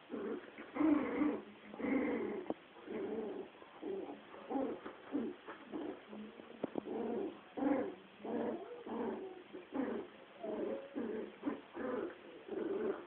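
West Highland White Terrier puppies play-fighting, giving short growls and yaps one after another, about two a second.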